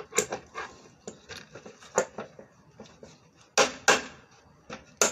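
Irregular sharp knocks and light clatter of wooden table parts being handled and fitted together, the loudest two knocks close together just past the middle.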